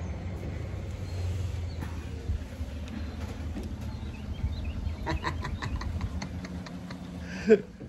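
Engine of a large Chevrolet SUV running, a low steady rumble, with a quick run of about ten short chirps about five seconds in.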